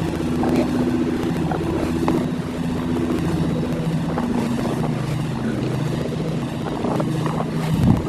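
An engine running steadily, a low hum that steps between a few pitches.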